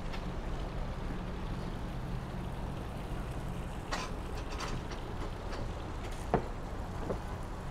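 Steady low mechanical hum with a few sharp knocks and taps from dock work, the loudest about six and a half seconds in.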